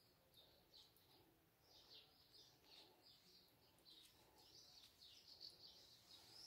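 Near silence, with faint, repeated short bird chirps in the background.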